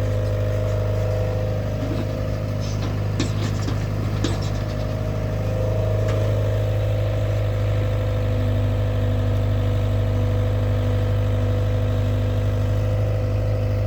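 Caterpillar 307 mini excavator's diesel engine running steadily, with a few short metallic knocks about three to four seconds in.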